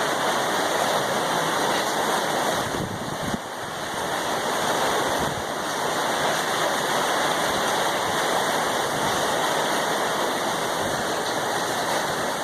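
Heavy hurricane rain and wind making a steady, loud rush, dipping briefly about three seconds in.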